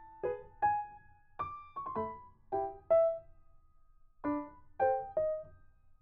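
Background music: a slow, gentle melody of single struck notes that ring and fade, with a pause of about a second midway.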